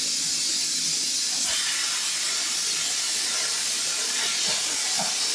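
Plasma cutter torch on an ArcDroid CNC robot: the compressed air hisses steadily through the torch, and about a second and a half in the arc strikes and the torch begins cutting steel plate with a steady hiss.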